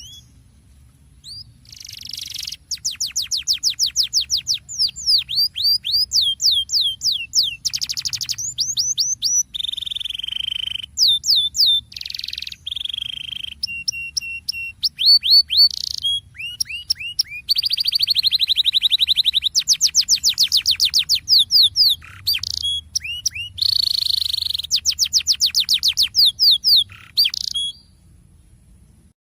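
Canary singing a long rolling song: runs of rapid, high, downward-sliding notes, about six a second, broken by buzzy trills, starting a second or two in and stopping shortly before the end.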